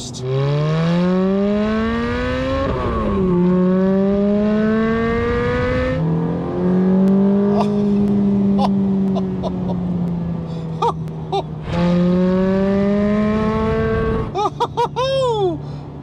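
Ferrari F430's 4.3-litre flat-plane V8, heard from inside the cabin, pulling up through the revs. The pitch drops at an upshift of the manual gearbox a little under three seconds in, then climbs again and holds a steady note for several seconds. It climbs once more before the throttle is lifted near the end.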